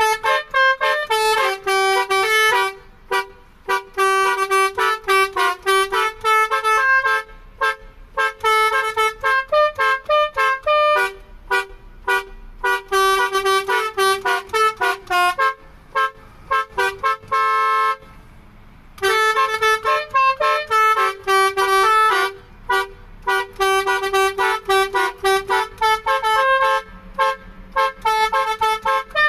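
Basuri telolet multi-tone horn played by hand like a keyboard, sounding a tune in short separate honked notes, with a pause of about a second about two-thirds of the way through.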